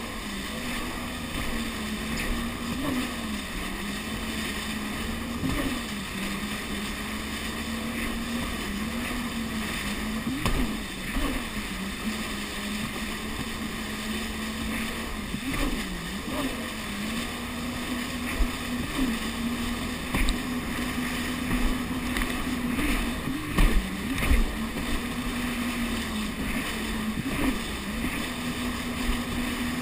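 Jet ski engine running steadily at speed, its pitch dipping and wobbling briefly every few seconds as the throttle or the water changes, with occasional low thumps in the second half.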